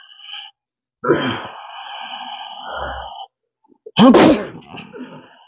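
A person's vocal sounds: a drawn-out voiced sound from about a second in, then a sudden loud burst of breath and voice about four seconds in, over steady high eerie tones.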